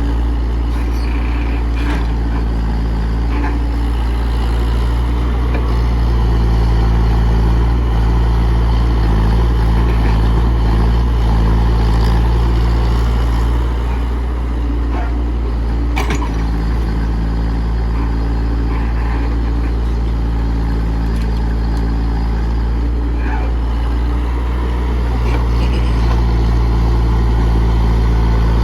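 Komatsu PC68 excavator's diesel engine running steadily, swelling louder twice as it picks up. A single sharp knock about halfway through.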